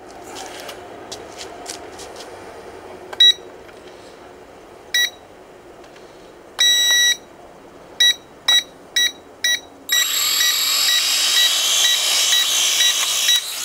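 Short, loud electronic beeps, first one at a time and then in a quick run of four. About ten seconds in, a cheap toy quadcopter's small brushed motors and propellers start up with a steady high whir as it is readied for takeoff, and the beeps keep sounding over it.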